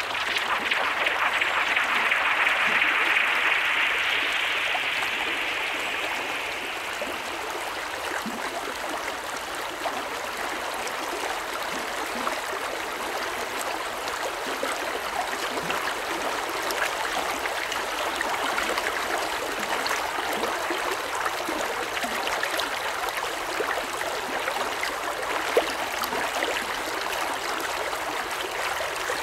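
Stream water running steadily, a dense babbling of flowing water, a little louder for the first several seconds before settling.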